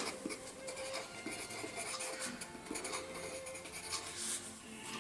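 Pencil scratching on paper in short, irregular strokes as a hand draws lines and writes letters.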